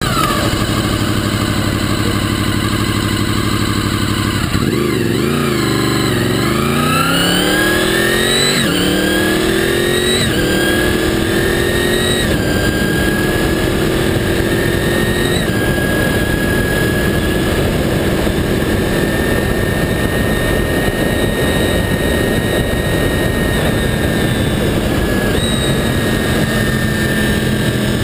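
Honda VFR800 sport bike's V4 engine under way. It holds a steady note, eases off briefly about four to five seconds in, then accelerates hard, the pitch climbing and dropping back at three quick upshifts, before settling into a steady high-speed cruise. Wind and road rush are strong at the camera, which is mounted low by the front wheel.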